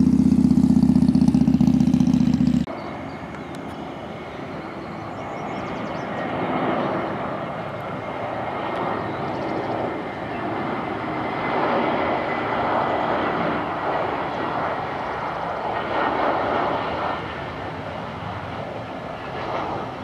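Jet airliner engines running, a rushing noise with a thin high whine that swells and eases over several seconds. Before it, a loud low hum cuts off abruptly about two and a half seconds in.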